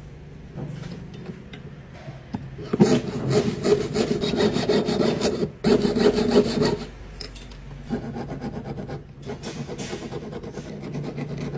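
Jeweler's piercing saw cutting through a small piece on a wooden bench pin in rapid back-and-forth strokes. The sawing grows loud about three seconds in and breaks off briefly near six seconds. From about seven seconds, quieter back-and-forth strokes of a hand file shaping the piece follow.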